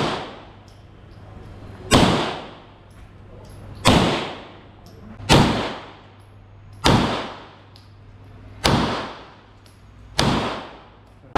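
Glock 19 Gen4 9mm pistol firing six slow, evenly paced shots, about one and a half to two seconds apart, each followed by a short echoing tail.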